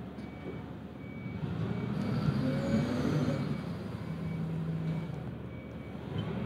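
Low, steady machinery rumble that swells louder for a second or two near the middle, then settles into a steady low hum.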